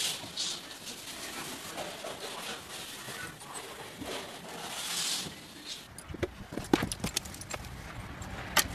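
Flat floor mop sliding back and forth over a wooden floor with a cat riding on it, a steady swishing hiss that swells now and then. About six seconds in it gives way to a series of sharp clicks and knocks.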